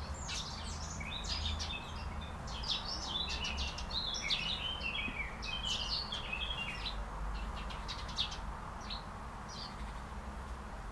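Small birds chirping and twittering in quick, high calls, busiest over the first seven seconds and thinning out after, over a low steady background rumble.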